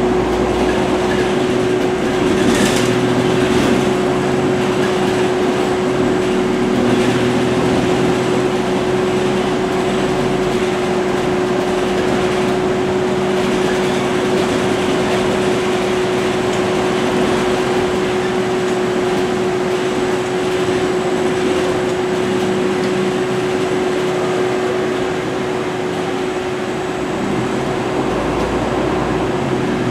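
Inside a MAN Lions City city bus while it drives: the engine runs continuously, its note shifting now and then as the bus changes speed, under a steady hum and the rush of road noise.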